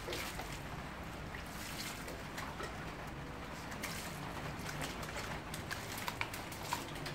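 Water poured from a plastic dipper and running from a hose, splattering steadily onto a wet puppy and a tiled floor drain as the puppy is rinsed, with scattered drips and splashes.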